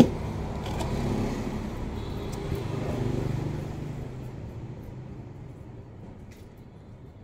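A motor vehicle engine running, growing louder to about three seconds in and then fading away, with a single sharp knock at the very start.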